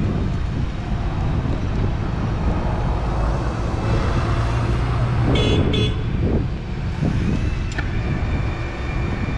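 Crown RR5225-35 electric reach truck running, with a steady low hum from its drive. About halfway through come two short horn toots, and near the end a steady high whine sets in.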